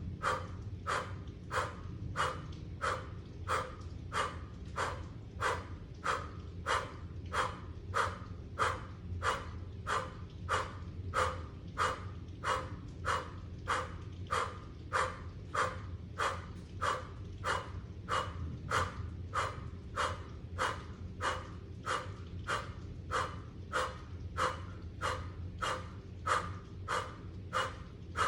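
Self-care breath, a Kundalini yoga breath of fire done through an O-shaped mouth: rapid, even, forceful breaths in and out, about two a second, each exhale driven by the navel pulling back toward the spine. A low steady hum lies underneath.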